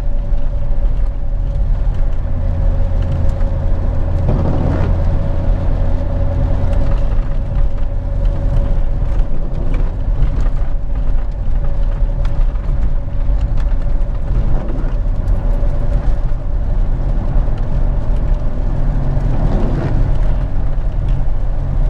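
Steady road noise inside a car's cabin while it drives along a rain-wet highway: a constant engine and tyre hum, with a steady whine that fades about two-thirds of the way through.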